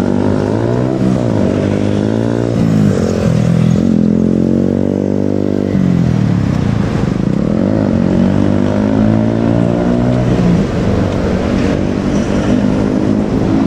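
A vehicle's motor running, its pitch falling and rising several times.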